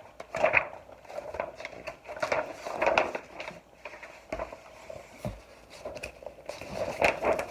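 A hardcover picture book being handled and its page turned: a run of light knocks and paper rustles, a little louder about half a second in, around three seconds in and near the end.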